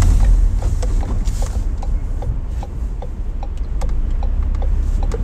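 Car's turn indicator ticking steadily, a few clicks a second, over the low rumble of road and engine noise inside the cabin; the right indicator is on while going round the roundabout.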